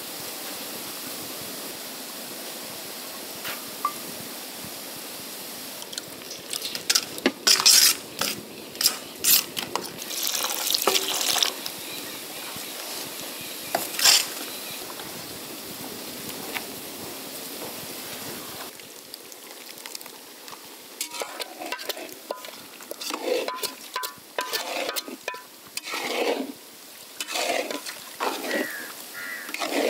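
A steel spoon stirring and scraping a curd-and-spice mixture in a stainless steel bowl, with sharp clinks against the metal that start after a few seconds of steady hiss. In the second half, a spatula stirs through diced bottle gourd curry in a steel wok, with quieter, busier scraping and clatter.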